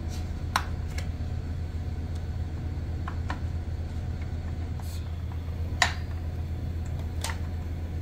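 A metal axle plate being pried with a plastic lever and wiggled loose on a motorcycle swing arm: a handful of short sharp clicks and taps, the loudest about six seconds in, over a steady low hum.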